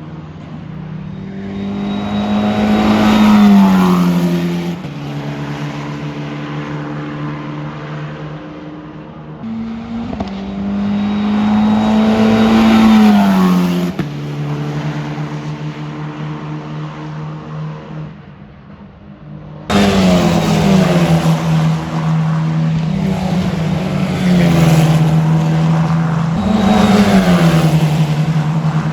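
Single-seater formula racing cars running at speed past the trackside microphone, their engine notes climbing and then dropping sharply as each car goes by, several times over. The sound changes abruptly just before two-thirds of the way through, as if cut to another car.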